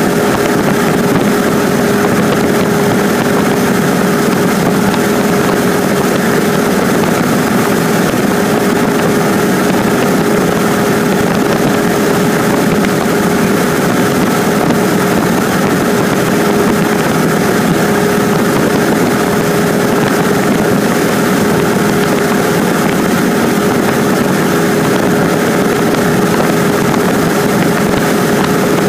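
Cessna 150's four-cylinder Continental O-200 engine and propeller running steadily at cruise, heard from inside the cabin as an even, unchanging noise with one steady hum.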